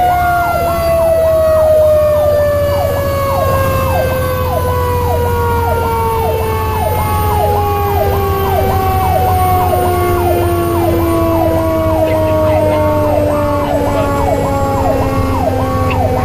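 Fire-truck sirens heard from inside the cab of a 2002 Pierce Lance rescue truck running emergency: an electronic siren cycles about twice a second while a second, single siren tone slowly winds down in pitch. Steady engine and road rumble run underneath.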